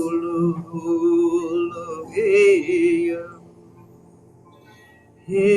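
Slow meditative sound-healing music of long held, wavering tones that glide in pitch. The phrase fades out a little past halfway, and a new one swells in near the end.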